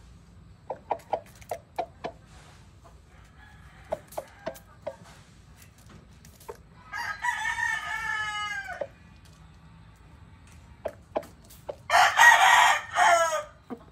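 Rooster giving a few short clucks, then crowing twice: first a crow of almost two seconds that slides down in pitch at its end, then a louder crow about three seconds later.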